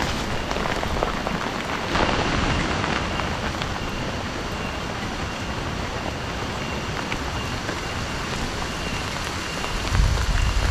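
Steady rain falling, with a few sharp drop taps; a low rumble comes in about ten seconds in.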